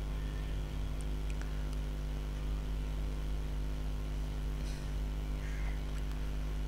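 Steady low electrical hum of the recording's background noise, with a few faint clicks about a second in and again near the five-second mark.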